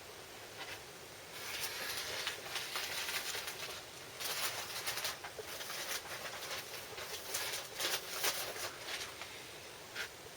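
Rustling and scraping of a vinyl LP and its sleeve being handled, with small ticks and brushes, busiest from about a second and a half in until near the end.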